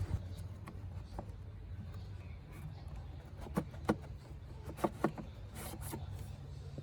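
Scattered light knocks and scrapes as an old engine air filter is pulled and wiggled out of its plastic air box, over a low steady hum.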